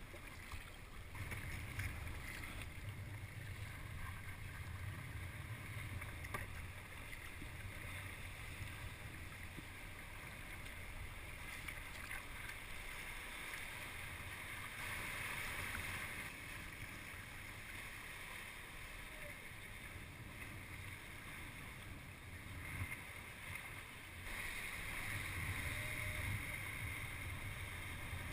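Water splashing and sloshing around a sea kayak under way on open water, with wind buffeting the microphone; the splashing grows louder about halfway through and again near the end.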